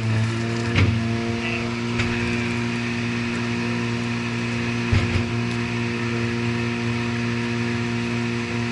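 Diesel engine of a work machine running steadily at idle, with a short knock about a second in and another around five seconds.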